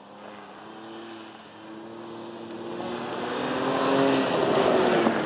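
Ford Ranger Raptor pickup's engine running hard as it drives toward the camera and past on a loose dirt track, growing louder and rising in pitch to a peak about four seconds in, then dropping slightly in pitch as it goes by. Its tyres make a crackle of loose dirt and stones under the engine.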